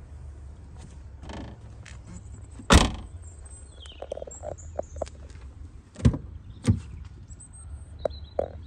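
A 2017 Mercedes A200 hatchback's tailgate is pulled down and shut with one loud thud a little under three seconds in. Two softer thuds follow a few seconds later, and birds chirp faintly throughout.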